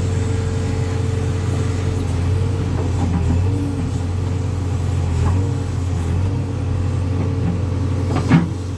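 JCB 3DX backhoe loader's diesel engine running steadily, with a sharp knock about eight seconds in.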